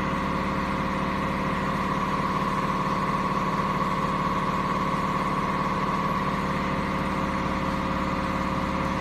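Steady mechanical hum with a constant faint whine over it, unchanging throughout.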